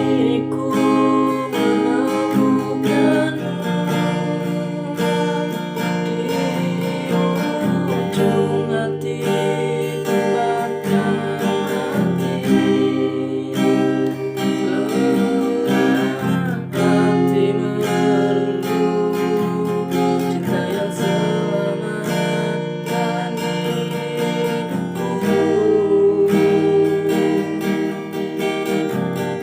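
Acoustic guitar strummed in changing chords, with a voice singing along at times.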